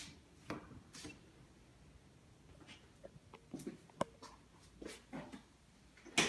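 Footsteps and handling noise as a phone is carried through an empty room: scattered soft knocks and scuffs at uneven intervals, the loudest one near the end.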